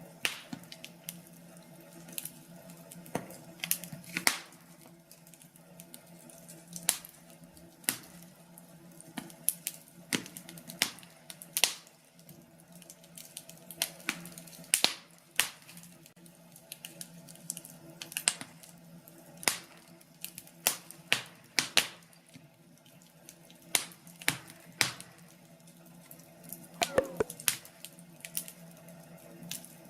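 Wood fire crackling in a fireplace: irregular sharp pops and snaps, a few at a time in quick clusters, over a steady low hum.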